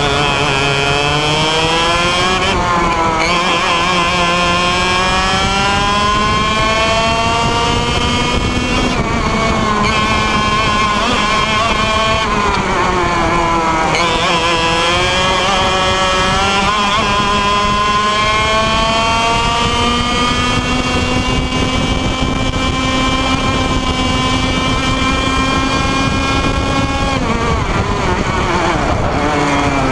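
IAME Leopard 125cc two-stroke kart engine at racing speed, heard from the driver's seat. Its pitch climbs steadily through each straight and drops sharply four times as the throttle is lifted for corners.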